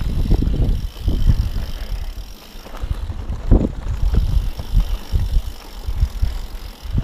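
Mountain bike rolling over a rough dirt and rock trail, the bike and mounted camera rattling and jolting over bumps, with wind buffeting the microphone. There is a heavier knock about three and a half seconds in.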